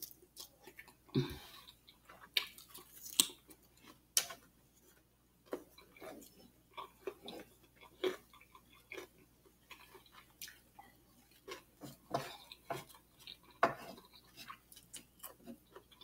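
Close-miked chewing of a mouthful of sausage with sauce: irregular wet smacks and mouth clicks, with short quiet gaps between them. Now and then a wooden spoon taps and scrapes through rice on the plate.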